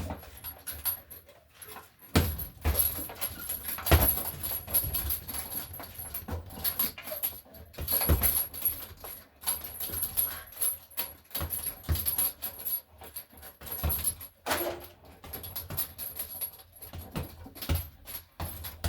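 A dog making sounds, with irregular knocks and thumps around it; the loudest thumps come about 4 and 8 seconds in.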